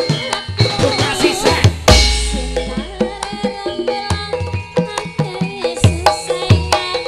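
Javanese gamelan ensemble playing: kendang drum strokes over ringing bronze metallophones and gongs, with a deep gong stroke about two seconds in.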